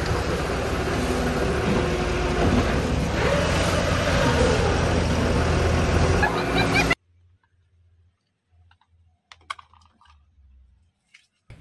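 JCB crawler excavator driving through shallow water, its engine running and water splashing around the tracks. The sound cuts off suddenly about seven seconds in, followed by a few faint clicks of plastic toy vehicles being handled in a basket.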